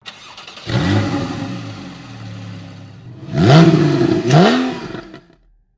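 Porsche Boxster's turbocharged flat-four starting up with a brief flare in revs, settling to idle, then revved twice in quick blips before the sound cuts off.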